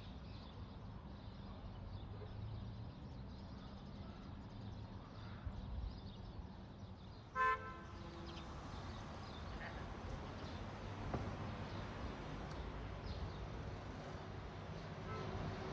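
Steady low outdoor hum, broken about seven seconds in by one short car-horn toot, the loudest sound.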